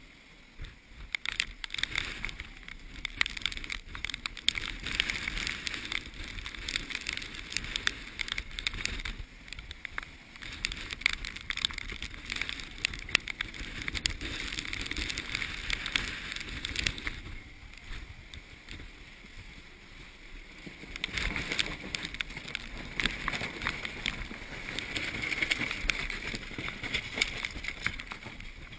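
Sailboat in strong wind: rushing wind and water with many sharp clicks and knocks. It dies down for a few seconds a little past the middle, then builds again.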